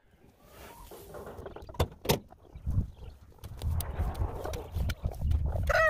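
Dry, dusty compost material being tossed and dumped onto a compost pile: rustling with scattered sharp knocks, two strong ones about two seconds in, over a low rumble. A chicken gives a short call near the end.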